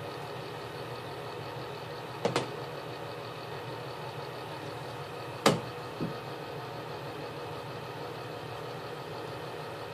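Small hard knocks of plastic bath toys handled against hard surfaces: a quick double knock about two seconds in, a sharper, louder one about five and a half seconds in, and a lighter one just after, over a steady hum.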